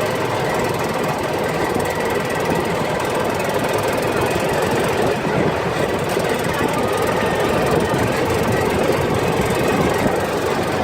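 Arctic Cat off-road vehicle's engine running steadily under way, loud and continuous, with rattling and wind noise from the ride.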